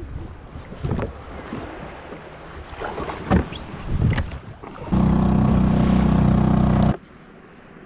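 Knocks and wind noise, then a small 2-horsepower outboard engine on a compact kayak running loud and steady for about two seconds before cutting off suddenly.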